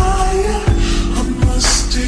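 R&B/hip-hop backing music with a heavy bass, sustained melody notes and a steady beat.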